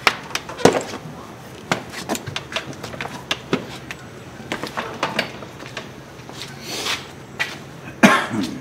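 Metal A/C liquid line clicking and knocking against the body panels and inner fender of a Hummer H2 as it is snaked down into place: a run of irregular knocks and scrapes, with a longer rustle and clatter near the end.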